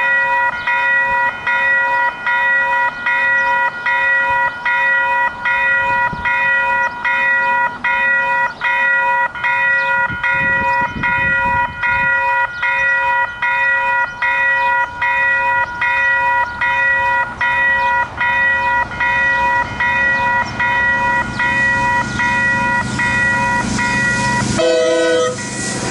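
Western Cullen Hayes electronic level-crossing bells ringing in a steady repeating beat, about two strokes a second. Near the end a diesel freight train's noise rises as it approaches.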